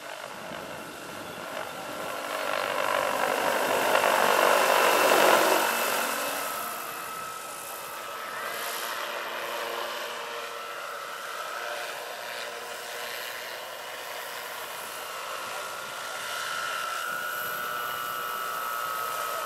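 Large electric scale model Hughes 500 helicopter with a 2.65 m rotor in flight: rotor and electric motor sound that swells to its loudest about four to six seconds in, then settles lower and steady, with a thin steady whine over it.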